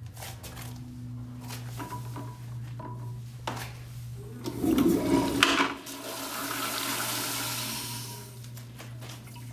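Vortens Vienna Flux commercial toilet flushed by its chrome flushometer valve. A loud rush of water comes about five seconds in, then a steady hiss of water washing through the bowl, tailing off near the end.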